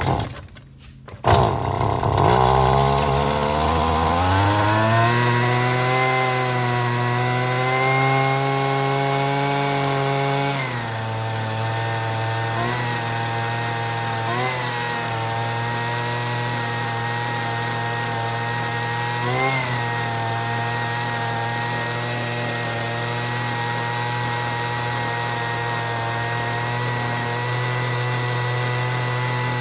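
Husqvarna string trimmer's small two-stroke engine pull-started and catching about a second in, now that its disconnected fuel line is back on. It speeds up over a few seconds, runs high, settles a little lower about ten seconds in, and then runs steadily with a few brief blips.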